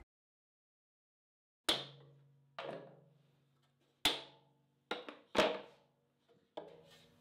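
Hand clamps and small plywood brackets being handled and set on a plywood panel: about six separate sharp clacks and knocks, starting about two seconds in, each ringing briefly.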